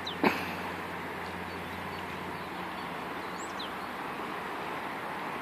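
Steady rush of a fast-flowing river, with a single sharp knock about a quarter second in and a bird chirping briefly twice.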